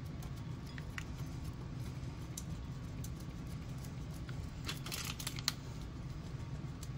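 A block of Parmesan cheese rubbed across a handheld flat grater: soft scraping strokes with small clicks, the loudest a cluster of scrapes about five seconds in, over a steady low hum.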